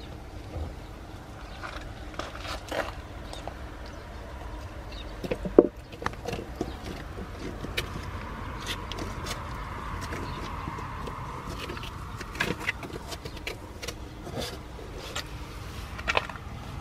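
Scattered knocks, clicks and scrapes on the wooden floor and walls of a whelping box as a Shiba Inu mother steps in and settles beside her newborn puppies. The loudest knock comes about five and a half seconds in, over a steady low background rumble.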